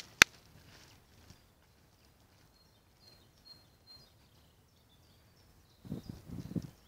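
Quiet open-air ambience with faint, thin, high bird calls. There are two sharp clicks right at the start and a short burst of low thumps near the end.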